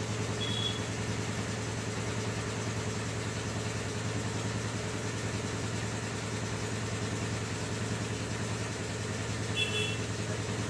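An engine idling steadily, with two short high beeps, one about half a second in and one near the end.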